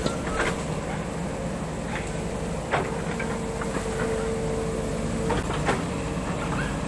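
Small Foton excavator running under work, its engine steady with a whine that grows stronger about three seconds in and drops away near the end. Several sharp metal clanks from the machine's tracks and digging gear.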